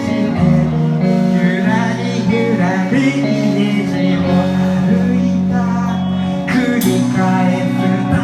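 Live band playing a song: strummed guitar over bass and drums, with a singing voice, and a cymbal crash near the end.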